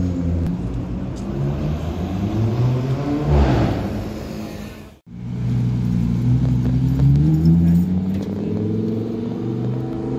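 Sports-car engines running in city traffic, with a car passing close about three and a half seconds in; the sound cuts off abruptly halfway through, then a Lamborghini Huracán's V10 revs up, rising in pitch as it accelerates.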